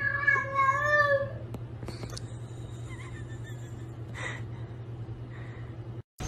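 A domestic cat giving one long, wavering meow, over a steady low hum. A few faint clicks follow.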